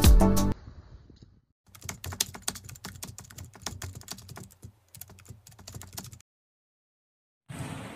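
Keyboard typing sound effect: a rapid, irregular run of key clicks lasting about four seconds, following background music that cuts off about half a second in. Music starts again near the end.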